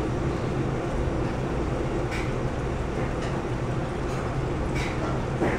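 Steady low mechanical hum of room background, with a few faint brief rustles or clicks.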